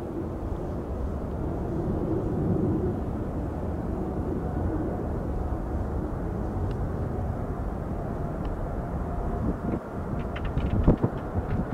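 Boeing 747-8 freighter's four GEnx-2B turbofan engines on final approach, a steady low rumble of jet noise. Near the end, uneven thumps of wind buffet the microphone.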